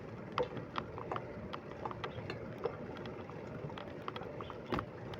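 Bicycle being ridden: a steady rush of road and wind noise with scattered irregular clicks and rattles from the bike.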